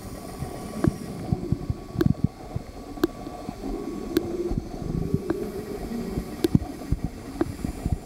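Underwater pool sound picked up by a camera beneath the surface: a muffled low rumble with irregular clicks and knocks.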